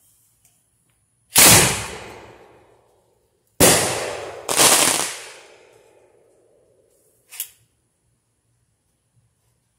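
Three loud bangs from firework mortar loads fired from a homemade 37 mm smooth-bore launcher tube with a fixed firing pin, each trailing off slowly. The first comes about a second in, the other two close together about a second apart near the middle. A short sharp click follows a few seconds later.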